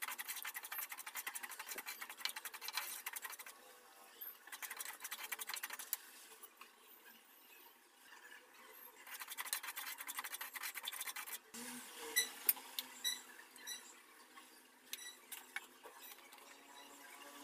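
A wooden spatula stirring and scraping dry semolina around a nonstick pan as it is dry-roasted, in three bursts of gritty scratching. In the second half there are scattered sharp clicks and taps instead.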